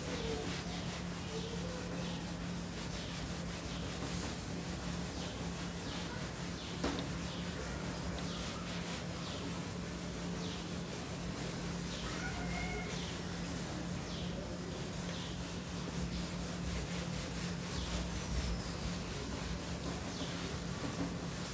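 Duster rubbing back and forth across a whiteboard, wiping off marker writing in repeated scraping strokes, over a steady low hum.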